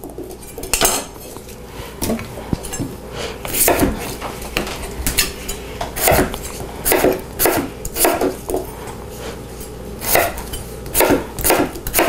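Chef's knife cutting potatoes on a wooden butcher block: a dozen or so sharp knocks of the blade on the board at an uneven pace, with short pauses between runs of cuts.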